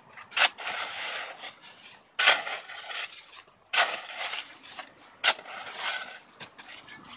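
A shovel's metal blade being driven into packed snow four times, about a second and a half apart. Each stroke is a sharp crunch followed by a scraping hiss as the blade slides through and lifts the snow.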